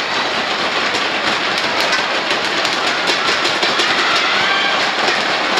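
Large arena crowd cheering and clapping in a dense, steady clatter.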